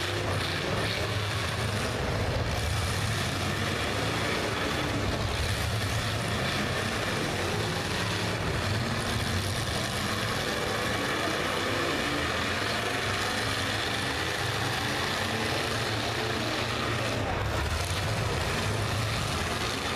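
Engines of several demolition derby cars running together in the arena, a steady dense din.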